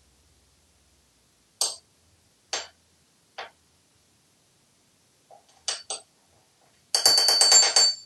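A parrot strikes a metal spoon against a marble counter: three single clinks about a second apart, two quick ones, then a fast rattling roll of ringing metal taps near the end.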